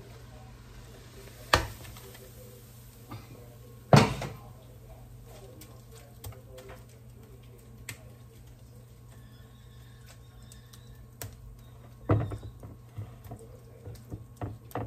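A wok and silicone spatula knock against a glass baking dish as a thick cooked bottle-gourd mixture is scraped in and spread, with soft scraping between. There are three sharp knocks, the loudest about four seconds in and another near twelve seconds, over a steady low hum.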